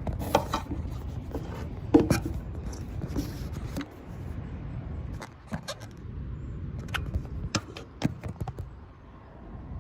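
Steady low rumble of a commercial Carrier condenser unit running with its newly replaced fan motor, which the technician takes to be spinning the wrong way. Scattered sharp clicks and knocks of handling sound over it.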